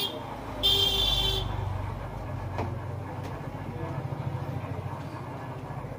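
Street traffic: a vehicle horn honks twice, a short toot and then a longer one of under a second, over the low rumble of an engine going past.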